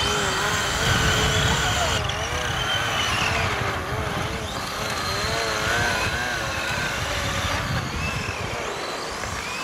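Small motors of radio-controlled model cars running on ice, a whining tone whose pitch wavers rapidly up and down as they are driven.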